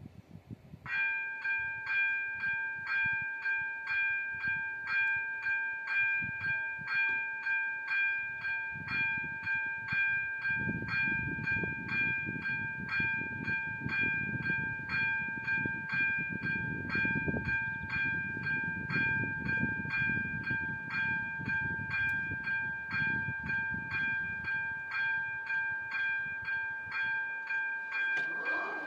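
Railway level-crossing warning bell starting about a second in and ringing steadily at about two strokes a second, with a train rumbling past through the middle. A short rising tone comes near the end.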